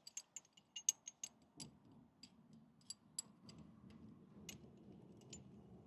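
Scattered light metallic clicks and taps from handling the parts of a brake caliper wind-back tool, with a faint low hum underneath from about two seconds in.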